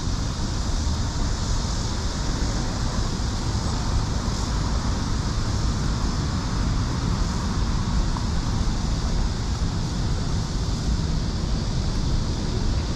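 Steady city street ambience: a constant traffic rumble with wind buffeting the microphone.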